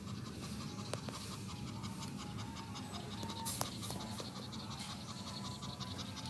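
Persian cat in labour panting rapidly through an open mouth, a fast, even rhythm of short breaths over a steady low hum. A sharp click comes about a second in and a brief louder rustle about three and a half seconds in.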